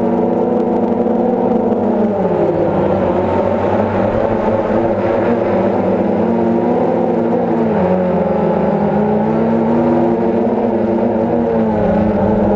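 DJI Phantom quadcopter's motors and propellers buzzing close to the microphone, a steady pitched drone whose pitch dips about two seconds in and again around eight seconds.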